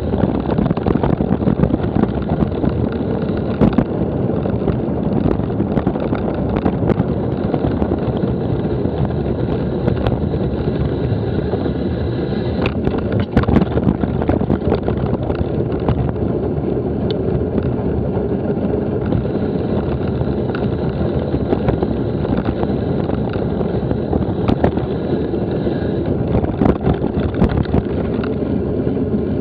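Steady wind rumble on a Garmin VIRB action camera's microphone during a bicycle ride, with scattered clicks and knocks from the moving bike.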